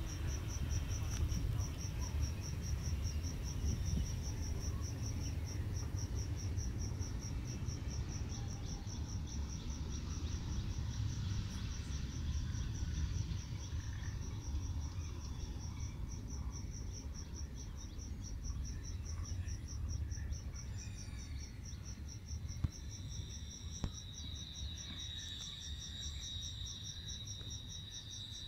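Insects trilling steadily in a fast, even pulse, with a second, slightly lower insect tone joining in near the end. A low rumble runs underneath.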